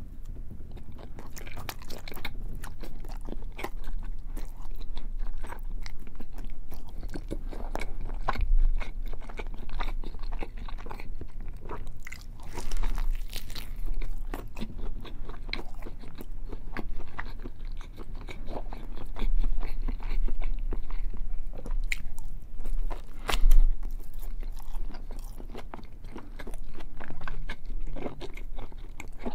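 Close-miked biting and chewing of a whole slab of bacon: a dense, uneven run of small clicks, with a few louder bites.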